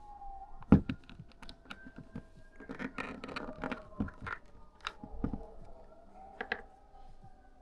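Irregular clicks and taps of a plastic phone case being pried and pulled off an iPhone, with the sharpest snap a little under a second in and a busier patch of handling noise about three seconds in.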